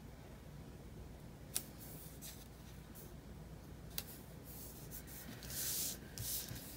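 Quiet handling of paper and stickers on a desk: two small clicks and a short rustle of paper near the end.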